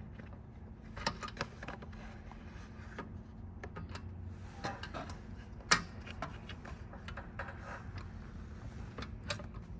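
Scattered light clicks and taps of small metal parts being handled as a spin bike's brake pad and brake knob are worked into the frame, with one sharper click a little before the middle. A faint steady low hum runs underneath.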